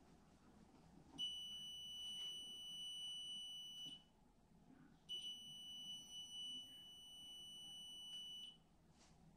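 Handheld electronic stud finder sounding a steady high-pitched tone twice, each about three seconds long with a second's gap between, as it is swept over the wall and signals a stud beneath.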